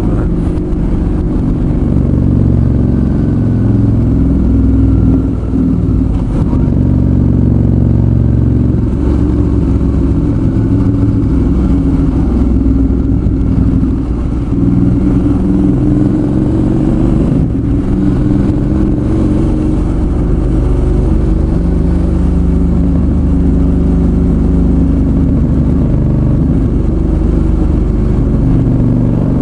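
Suzuki V-Strom 650's V-twin engine running under way on the road, its pitch rising and falling several times with throttle and gear changes.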